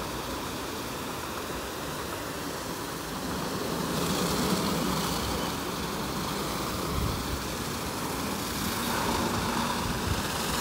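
WashTec Combiwash Silverlight gantry car wash running, its rotating brushes, water spray and drive motors making a steady noise. About four seconds in the noise grows brighter and a little louder as the brushes work against the back of the car.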